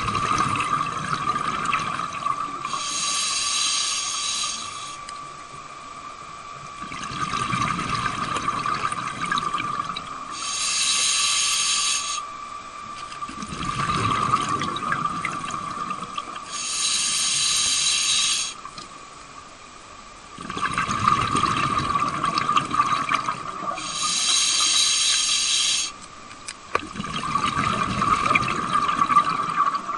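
Scuba diver breathing underwater on an open-circuit regulator: a hissing inhale through the demand valve of about two seconds alternates with a rumble of exhaled bubbles, one breath every six to seven seconds, over a steady high hum.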